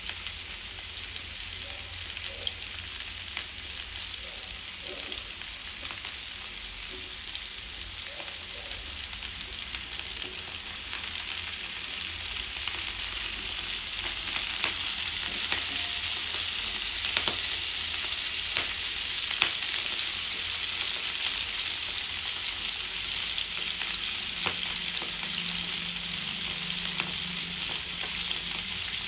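Chopped bok choy sizzling in oil in a nonstick frying pan: a steady hiss that grows louder about halfway through. A few light clicks come as the pan is moved.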